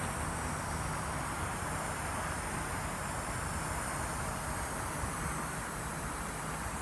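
Steady wind noise on the microphone, an even rushing with no breaks.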